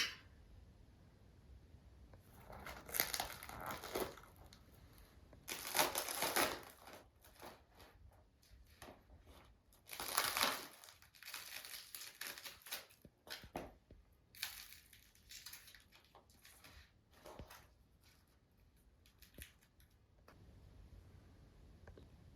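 Irregular bursts of crunching and rustling, like something dry being handled. The three loudest come in the first half, followed by weaker crackles.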